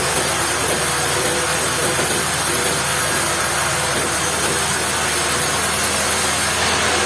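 Sawmill machinery running steadily: a low engine drone under a loud, even hiss.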